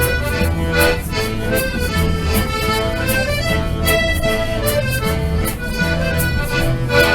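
Accordion playing a traditional tune, with a held melody over a bass line and a steady beat.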